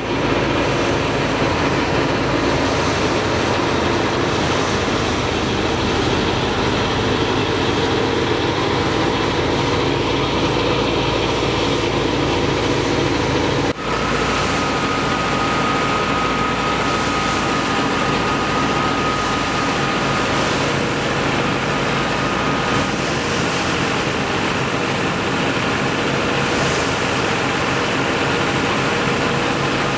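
A wheat thresher driven by an Al Ghazi tractor's power take-off runs steadily as wheat is fed into it, making a dense, even machine din. There is a brief drop partway through, and a thin steady whine runs through the middle stretch.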